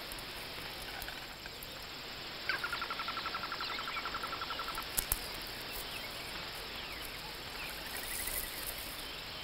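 Outdoor nature ambience: a steady hiss with a rapid trilling animal call, about a dozen pulses a second, starting about two and a half seconds in and lasting some two seconds. A sharp click comes about five seconds in, and a fainter short trill near the end.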